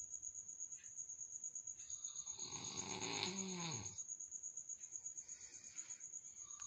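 Snoring: one long snore of about two seconds that falls in pitch at its end, then a fainter breath about five seconds in.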